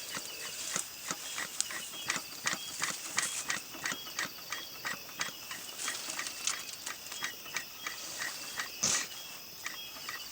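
Beekeeper's smoker with its hand bellows pumped quickly, giving short rhythmic puffs and clicks about three times a second, with one stronger puff near the end; this is done to get the smoker fuel burning. Faint steady insect chirring underneath.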